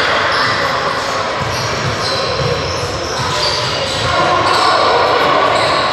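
Basketball bouncing on a hardwood gym court, with short high squeaks scattered throughout and a busy, echoing hall sound.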